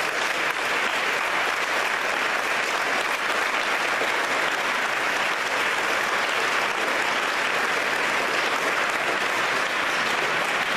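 A congregation applauding steadily, many hands clapping in a dense, even patter.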